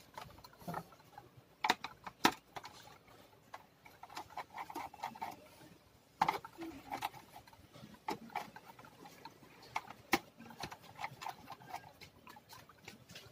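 Scattered small clicks and faint scraping of a screwdriver and fingers on the plastic bottom case of a Toshiba C640 laptop as screws along its back edge are undone. The sharpest clicks come about two seconds in, about six seconds in and about ten seconds in.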